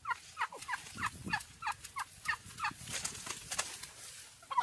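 Turkey calling in a quick run of short notes, each falling in pitch, about three a second, with a few sharp crackles underneath.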